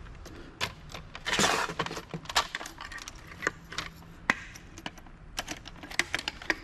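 Small metal and plastic parts of a CD-ROM drive clicking and clinking as they are handled, with a short scraping rustle about a second and a half in.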